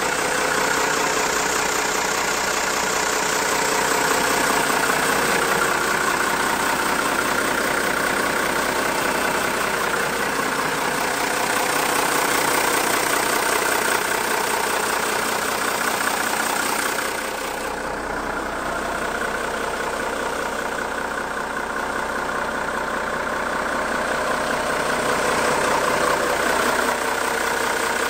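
1990 M931A2 military 5-ton semi tractor's Cummins 6CTA8.3 turbo-diesel inline-six idling steadily. The sound turns a little duller about two-thirds of the way through.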